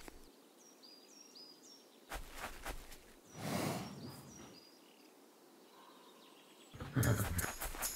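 Forest ambience with small birds chirping, then a cartoon horse's long sighing exhale about three and a half seconds in. Near the end, music with quick rhythmic strikes starts.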